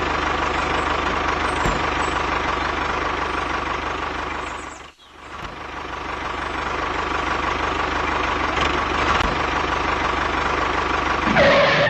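Tractor engine running steadily with an even low pulse. It fades out briefly about five seconds in and then builds back up.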